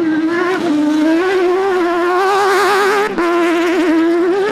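Off-road racing car's engine running hard at high revs as it drives across a dirt course, its pitch rising and falling, with a brief drop about three seconds in.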